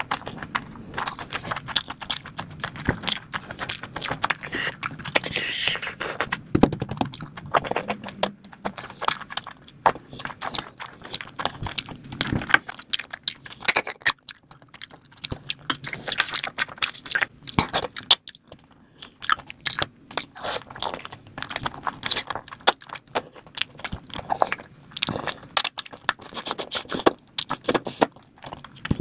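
Chewing and wet mouth sounds of a person eating mouthfuls of mutton biryani eaten by hand: many irregular small smacks and clicks, with a few short pauses.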